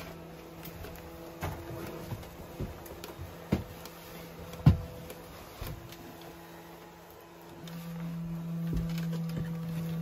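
Scattered light clicks and knocks, the sharpest a little under halfway through, over a steady low hum that gets louder about three-quarters of the way in.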